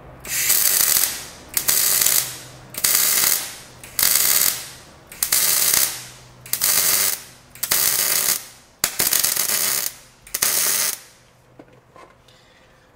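MIG welding arc crackling in about nine short bursts a little over a second apart, building up weld on the worn end of a Bobcat broom attachment's shaft to fill its holes.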